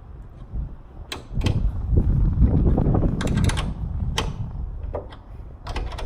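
Hand tools working a blind nut insert: sharp metal clicks and clanks as a 10mm wrench is turned against an Allen key to tighten the rivet-nut tool, over low rumbling handling noise.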